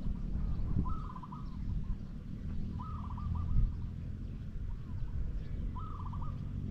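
A bird calling three times, each call a quick run of several notes, repeated every two to three seconds over a steady low rumble.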